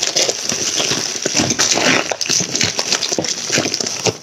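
Thin plastic shipping mailer being torn open and crumpled by hand: continuous crinkling and rustling of plastic with many small crackles.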